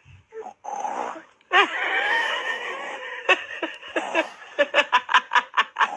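A voice imitating snoring: snorting, wavering breathy sounds, then a fast rattling run of short pulses near the end.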